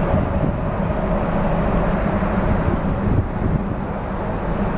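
Steady drone of a river cruise ship's engines and deck ventilation heard from the open upper deck: a constant low hum with a higher steady tone above it.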